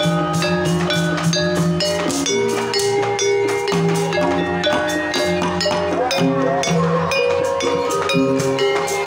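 Javanese Banyumasan gamelan playing a tayub piece: kendang hand drums struck in quick, busy strokes over ringing bronze metallophones and long-held low tones.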